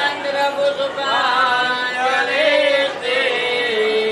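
Sanskrit mantra chanting for a puja: one voice holding long, melodic notes that slide up and down in pitch.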